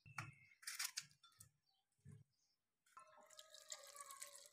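Faint, near-silent kitchen sounds: a few soft knocks of chopped onion pieces dropping into a plastic blender jar. From about three seconds in, a faint steady trickle of water runs into the jar over tomatoes and green chillies.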